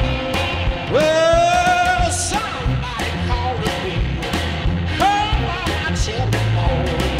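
Background rock song with a steady drum beat and guitar; a singer slides up into a long held note about a second in, and again around five seconds in.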